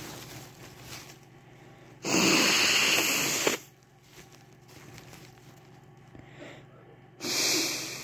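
A person blowing their nose: one long blast about two seconds in and a second, shorter one near the end.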